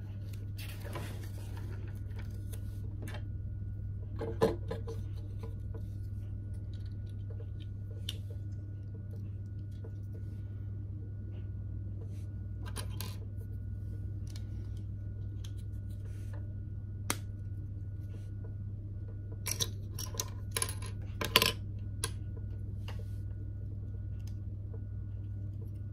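Small hard-plastic LEGO pieces clicking and clattering as they are handled and pressed onto a partly built model car. Scattered single clicks give way to a busier, louder run of clicks about twenty seconds in, over a steady low hum.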